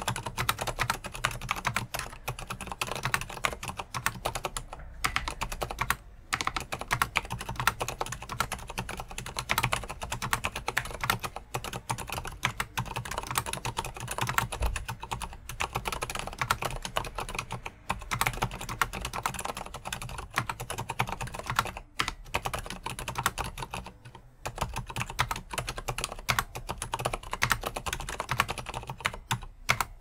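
Continuous fast typing on stock Gateron Silent Brown switches in the plastic-housed mStone Groove F keyboard: a dense stream of key strikes broken by a few brief pauses.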